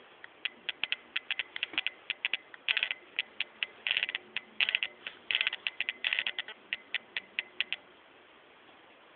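A run of sharp, irregular clicks with a few short clattering rattles mixed in, stopping about three-quarters of the way through.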